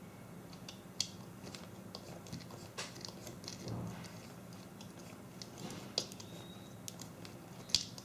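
Scattered light clicks and taps of wires and small electronic parts being handled and pushed into place by hand, with sharper clicks about a second in, around six seconds in and just before the end.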